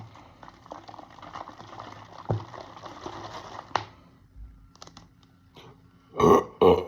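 Someone chugging fizzy cola from a 2-liter bottle: swallowing and fizzing for about four seconds, ending with a sharp click. Near the end come two loud burps.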